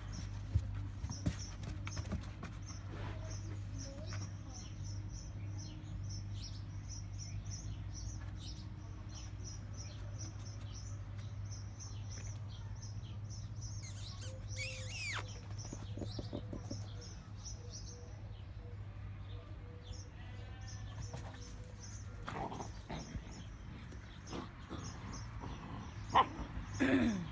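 A steady low hum under a faint, high chirping that repeats a couple of times a second. There is a short dog whine or growl that falls in pitch near the end.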